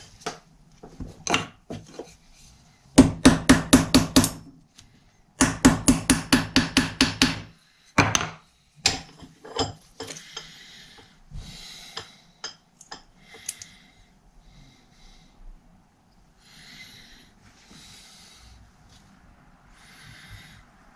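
A small metal part worked in a steel bench vise: two quick runs of sharp metal taps, about six a second, a few seconds in. Then scattered clicks and short scraping sounds.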